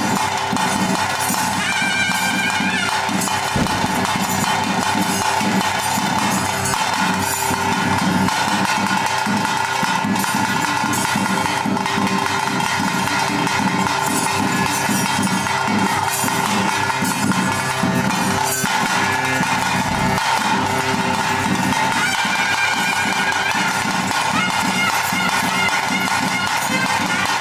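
Traditional ritual music of a bhuta kola: a held, droning wind-instrument tone over steady drumming and clanging cymbals or bells, with a higher melody line coming in about 2 seconds in and again near the end.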